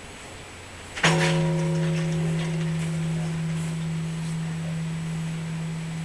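Large bronze Japanese temple bell of Kawagoe's Toki no Kane struck once by its hanging wooden log striker about a second in, then a long, low, humming ring that fades slowly. This is one stroke of the bell ringing the 3 p.m. hour.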